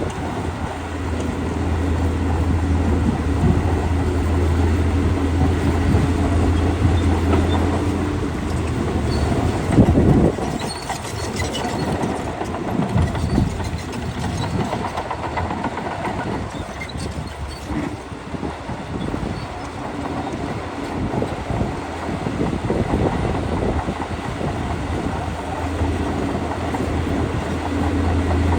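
Shantui DH17C2 crawler bulldozer working: its diesel engine runs with a steady low drone. In the middle stretch, after a loud jolt, the drone gives way to clanking and rattling as it works.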